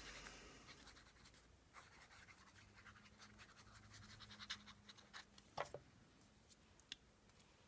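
Faint, occasional rustles and scrapes of paper pieces being handled and slid about on a journal page, with a few light ticks.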